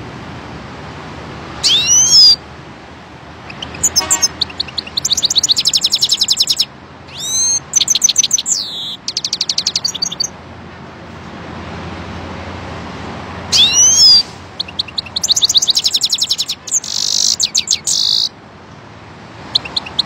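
Caged goldfinch singing in two bouts. Each bout opens with a few loud swooping whistled notes and runs on into rapid twittering trills, the second ending in a buzzy phrase. There is a pause of a few seconds midway and scattered faint notes near the end.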